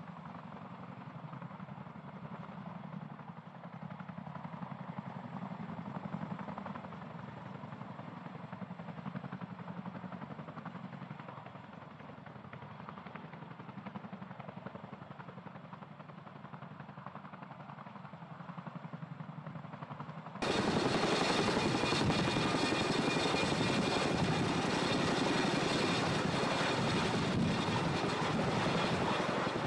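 CH-47 Chinook tandem-rotor helicopters hovering and lifting off: steady rotor and turbine engine noise. About twenty seconds in it jumps suddenly much louder and fuller.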